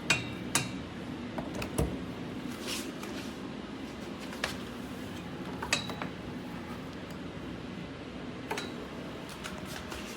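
Scattered light clicks and taps, a few with a short ring, over a steady low hum.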